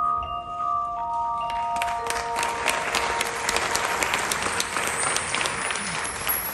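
Audience applauding, the clapping building from about a second and a half in, over the last sustained chime-like tones of the show music as they fade away.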